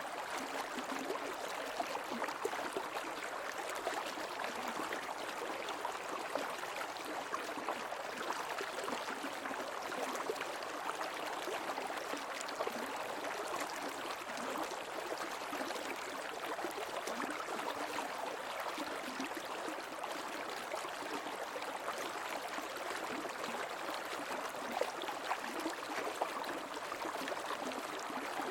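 Shallow creek water flowing and gurgling steadily over stones.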